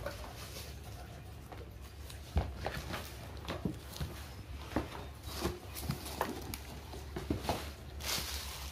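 Scattered light knocks and paper rustling as a pair of new school shoes is lifted out of its paper-lined shoebox and set down, with one sharper knock a little over two seconds in.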